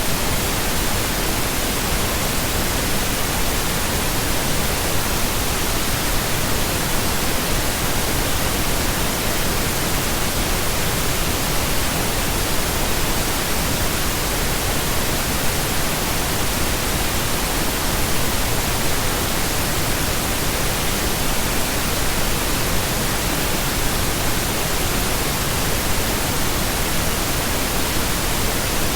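Steady pink noise: an even, unbroken hiss spread across the whole range of pitch, with no change in level.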